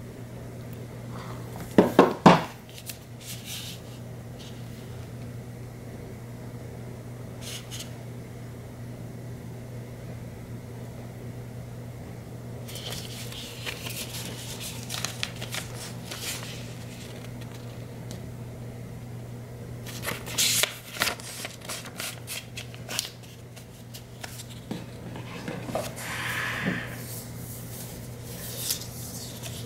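Hands handling cardboard and paper packaging: a cluster of sharp knocks about two seconds in, the loudest sounds, then later stretches of paper and cardboard rustling with light taps, over a steady low hum.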